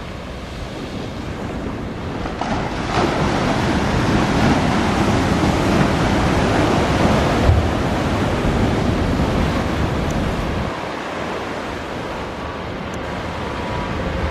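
Airbus A340-212's four CFM56 turbofan engines running, a broad steady roar mixed with wind on the microphone. It swells about three seconds in and eases a little after about ten seconds, with a faint steady whine near the end.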